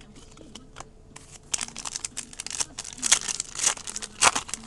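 Foil trading-card pack wrapper crinkling and tearing as it is handled, starting about a second and a half in, with the loudest crackle near the end.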